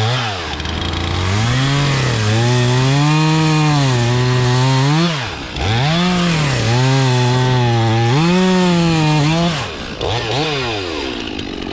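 Gas chainsaw with a long bar running at high revs while cutting, its pitch wavering under load. The throttle drops briefly twice, about five and a half and ten seconds in, and the saw revs back up each time.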